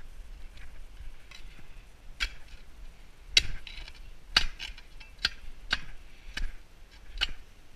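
Spade digging into lawn soil: a series of sharp scraping strikes as the blade is driven into the earth, about one a second from about two seconds in, seven in all.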